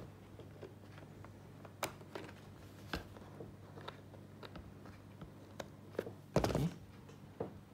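Handling sounds while a USB cable is swapped: scattered light clicks and knocks over a faint steady low hum, with a louder brushing bump near the end.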